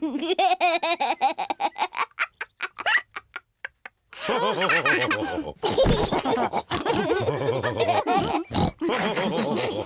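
Cartoon pig characters snorting and laughing: a few short separate snorts about two seconds in, then several voices laughing and snorting together from about four seconds in.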